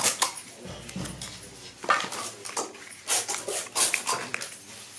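Stiff paper crinkling and rustling in a string of sharp, irregular crackles as hands fold a small triangular paper firecracker casing and handle loose paper confetti.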